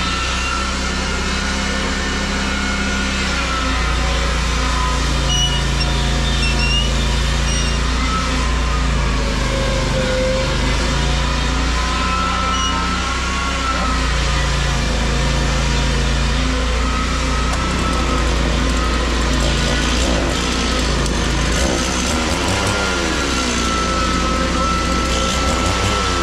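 An engine running steadily, its speed and pitch wavering slightly.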